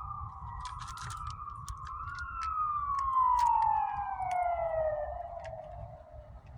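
A siren wailing: one unbroken tone that wavers, then makes one long slow fall in pitch and fades near the end, over a low rumble and scattered sharp clicks.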